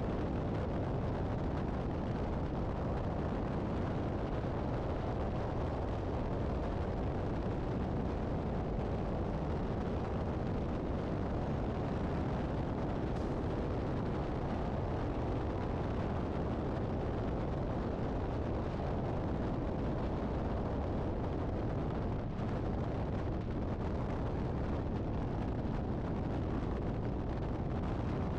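Steady low rumble of highway driving: wind buffeting the microphone with tyre and road noise, as tractor-trailers pass close alongside.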